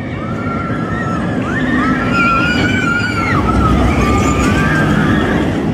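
An Arrow suspended roller coaster train rumbling past along its steel track. It swells to its loudest in the middle, with high wavering, gliding whine-like tones over the rumble.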